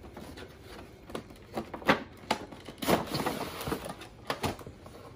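Cardboard toy packaging being opened and handled: a string of irregular clicks, taps and scrapes as the box's end flap is worked open and the plastic blister tray is slid out.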